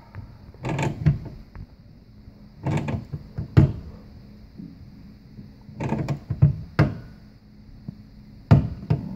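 Hand tool knocking and scraping on the brass supply-line elbow as it is nudged snug onto the dishwasher's plastic inlet valve, gently to avoid stripping the plastic thread. The sounds come in about four short clusters of clanks and rattles.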